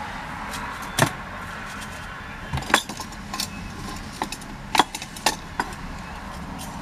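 Scattered sharp clicks and taps of a smartphone box and its packaging being handled and opened, about eight in all, over a steady low hum.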